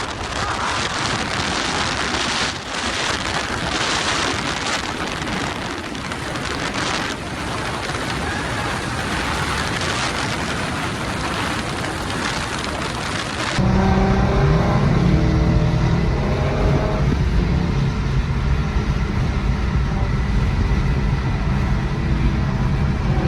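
Car on the move with heavy wind and road hiss on the microphone. About halfway through it cuts to a louder, deeper exhaust rumble from the Infiniti Q50 on test pipes, its pitch rising for a few seconds as the engine accelerates, then holding steadier.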